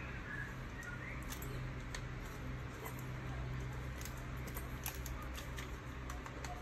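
Scattered light clicks and scratches of a long metal screwdriver poking and prying inside a plastic miniature circuit breaker, over a steady low hum.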